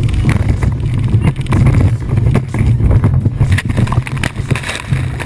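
A speedboat at high speed, its hull slamming again and again against waves over a steady rush of wind and engine, with water crashing over the boat near the end.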